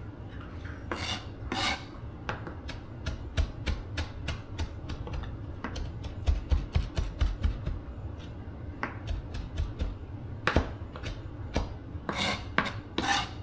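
Kitchen knife rough-chopping fresh dill on a cutting board: a run of sharp taps, quickest about six seconds in, with a few short scrapes.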